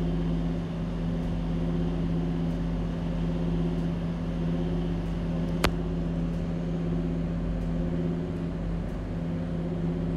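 Steady motor hum with a low, even pitch. Over it, a spoon faintly scrapes as it stirs thick date pickle in a steel pan, with one sharp click about halfway through.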